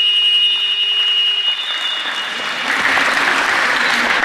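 Sports-hall scoreboard buzzer holding one steady tone for full time, cutting off about a second and a half in; applause starts near the end.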